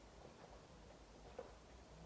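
Near silence: a man drinking from a glass, with a few faint swallowing sounds and one brief tick about a second and a half in.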